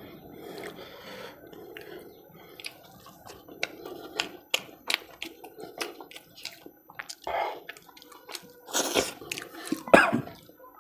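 Close-miked chewing and wet mouth clicks of a man eating spicy mutton curry with puri, along with squelches of his fingers in the thick gravy. A few louder bursts of noise come near the end.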